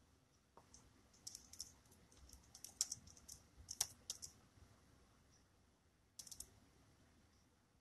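Faint typing: short runs of quick, light clicks through the first half, with a brief run again near the end.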